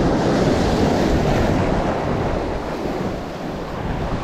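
Sea surf washing and foaming over flat shore rocks, with wind buffeting the microphone; it eases slightly about three seconds in.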